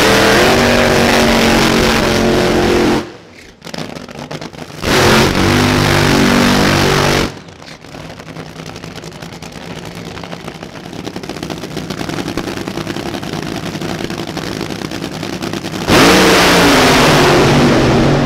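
Drag racing funny car engines, supercharged V8s, running at full throttle in very loud bursts of a few seconds each: one of about three seconds, another after a short break, then a quieter stretch of engine noise. Near the end comes a loud launch with the pitch rising.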